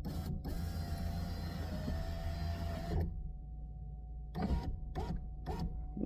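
2004 Pontiac's rear-door power window motor driving the glass on its newly installed regulator for about two and a half seconds, a steady motor whine that stops suddenly, followed by a few short clicks and knocks.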